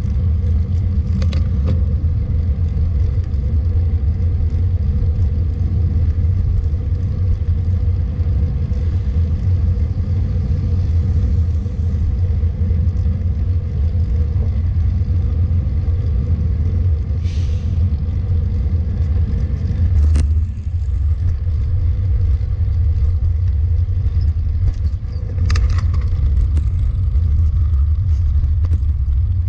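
Steady low rumble of wind buffeting the microphone of a camera on a moving road bike, mixed with tyre and road noise. A sharp click comes about twenty seconds in, and there are a couple of brief hisses.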